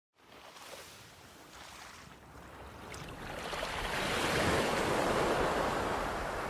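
A rushing noise without any pitched tone, fading in quietly and swelling much louder in the second half.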